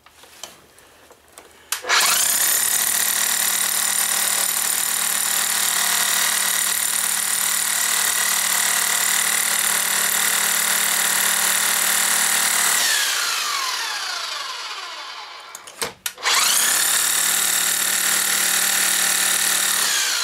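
Corded electric hammer drill with a masonry bit boring into a concrete floor. It starts about two seconds in and runs steadily for about eleven seconds, then winds down with falling pitch. It starts again about sixteen seconds in and is winding down again at the end.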